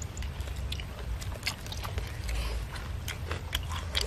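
Biting into and chewing crispy deep-fried chicken: a scatter of short crunchy crackles over a low steady rumble.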